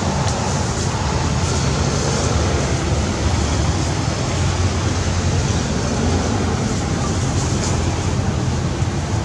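Steady, loud rumbling noise with no distinct events.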